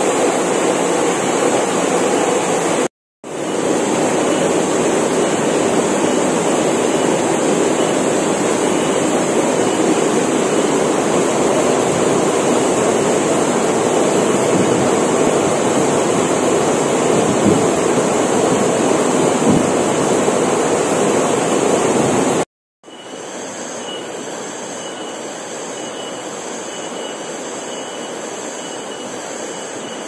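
Waterfall pouring into a rock pool: a steady, loud roar of falling water, broken by two brief silent cuts. After the second cut, about three-quarters of the way through, a quieter steady rush with a faint thin high tone.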